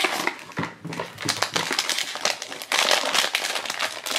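A foil blind-box bag crinkling as it is pulled out of its cardboard box and handled, with many quick crackles throughout.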